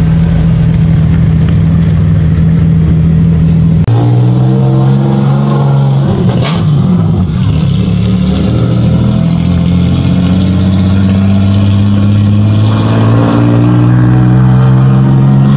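Loud engines of 4x4 vehicles running at steady high revs close by, the pitch shifting about four seconds in, with a sharp click a couple of seconds later.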